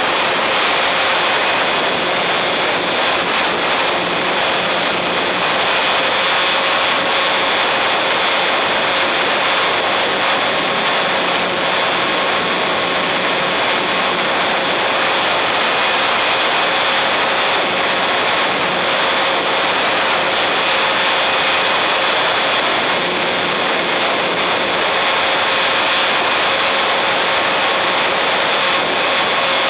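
Electric motor and propeller of a radio-controlled model plane running steadily in flight, a steady whine over rushing air noise, picked up by a camera mounted on the plane.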